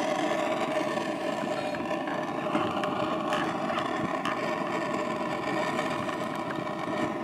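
Handheld gas torch burning steadily, its flame aimed at charcoal briquettes in a ceramic kamado grill to light them.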